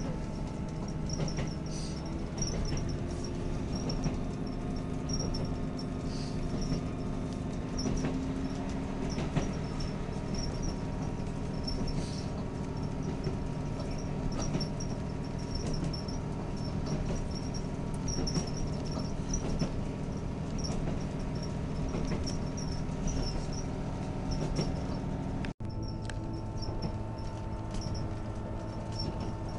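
Diesel passenger train running, heard from inside the carriage: a steady low engine and running hum with frequent small high squeaks. The sound cuts out for an instant about four seconds before the end.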